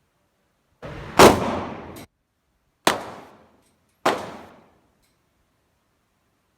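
Three gunshots, the first the loudest, each with a short echoing decay. The second follows the first after about a second and a half, and the third follows a little over a second later.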